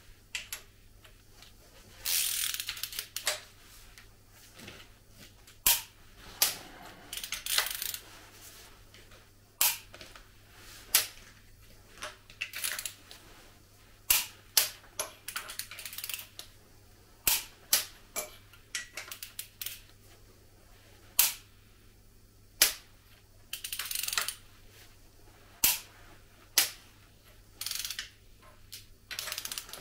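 Many sharp metal clacks and snaps at irregular intervals, some ringing briefly, with a few short bursts of scraping and rattling: steel hand tools and a long lever worked against the valve springs of a Volvo D67C diesel engine's cylinder head.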